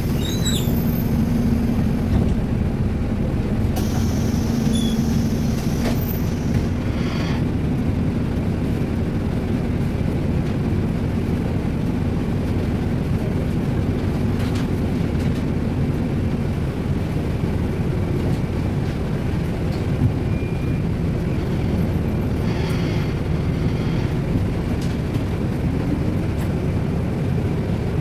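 Steady low rumble of a road vehicle on the move, engine and road noise, with a steady hum over it for the first seven seconds or so.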